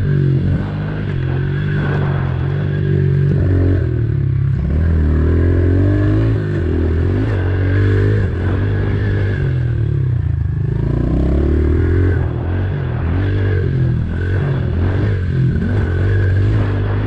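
Small single-cylinder four-stroke pit bike engine being ridden, its pitch rising and falling again and again as the throttle is opened and closed.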